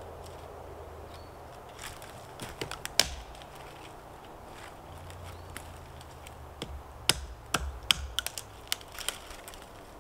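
Dead, dry pine branches being snapped off a tree by hand: sharp cracks and snaps, a few around two to three seconds in and a quicker cluster in the second half.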